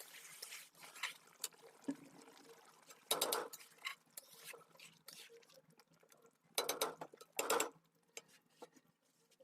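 Metal kitchen utensils knocking and scraping against a cooking pan in three short loud bursts, with quieter handling clicks between.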